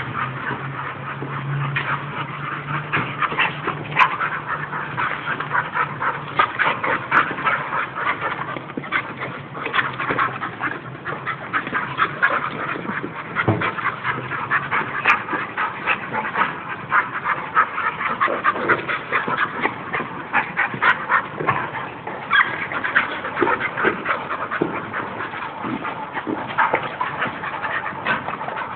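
Two bull terriers play-fighting, with a dense, continual run of short, rapid play noises from the dogs. A low steady sound runs through the first few seconds.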